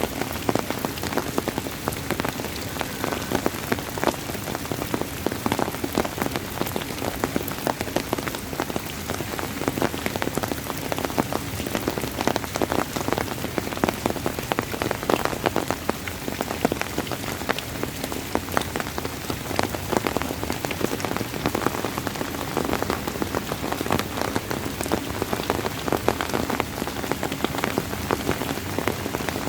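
Steady rain falling on a hard surface, a dense patter of individual drops over a constant hiss.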